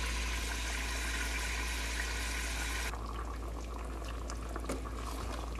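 Marinated chicken sizzling in hot oil in a steel pot, a dense steady hiss. About three seconds in it cuts to a quieter bubbling of the simmering masala gravy, with a few light clicks.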